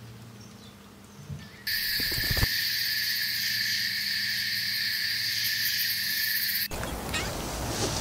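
Added nature sound: a loud, steady, high-pitched buzzing drone of calling animals, insect- or frog-like, starts about two seconds in and cuts off suddenly near seven seconds, giving way to a rushing noise.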